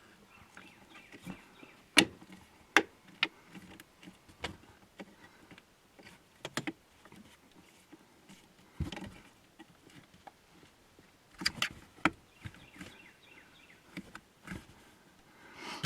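Scattered sharp clicks and knocks, with a duller thud near the middle, as a stainless steel pedal cover is pushed and clipped over a car's gas pedal.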